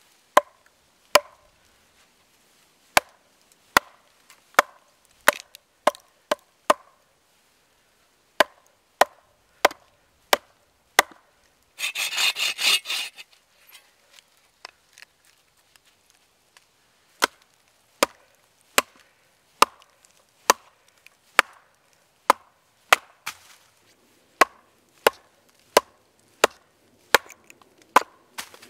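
Hatchet head being knocked into a log with a wooden club: sharp wood-on-wood knocks, roughly one a second. Around the middle comes a short burst of quick folding-saw strokes. Then more hatchet knocks split pieces off the log.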